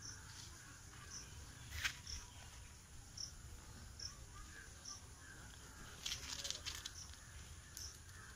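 Quiet outdoor ambience with a short, high chirp repeating about once a second. A sharp knock comes about two seconds in and a brief rustle around six seconds.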